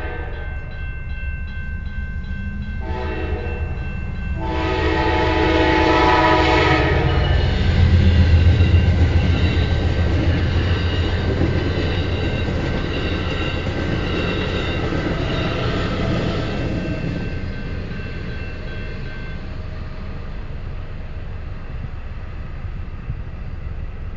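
Amtrak P42DC diesel locomotive sounding its horn at a grade crossing: a blast ending just after the start, a short blast about 3 s in and a long blast from about 4.5 to 7 s. The locomotive's rumble is loudest about 8 s in as it passes, then the passenger cars roll by, slowly fading. A steady high ringing from the crossing signal's bell runs underneath.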